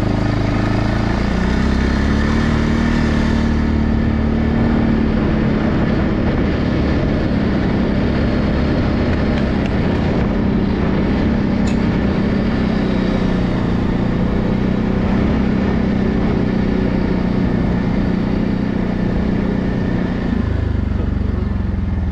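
ATV engine running under throttle while riding, its pitch rising about a second in, holding steady for most of the time, and dropping back near the end.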